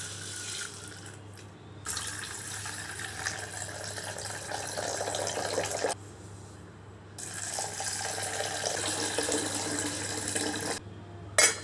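Tap water pouring into a steel bowl of soaked dried green peas, in two spells of about four seconds each with a short break between. Before that, hands swish the peas in the water, and a sharp knock comes near the end.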